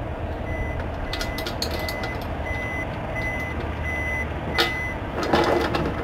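A vehicle's reversing alarm beeping at an even pace, about seven high beeps roughly 0.7 s apart, over a steady low engine rumble. A few clicks and knocks of hands working the roof-rack clamp and tank, the loudest near the end.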